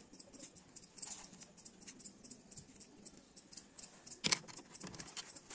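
Soaked millet grains clicking and pattering as a hand scoops them and lets them fall into a terracotta clay dish: a run of faint small clicks, with one louder knock a little after four seconds in.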